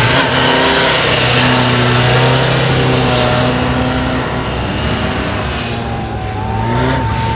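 Honda police motorcycle engine revving up and down as the rider accelerates and brakes through tight turns. The engine note holds fairly steady, drops about halfway, then climbs again near the end.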